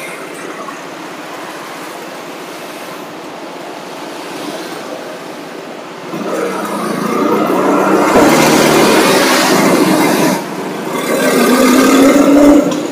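Motor vehicle engine and road noise: a steady hum, then from about six seconds in an engine grows much louder and revs up, ending with a held engine note that rises slightly in pitch.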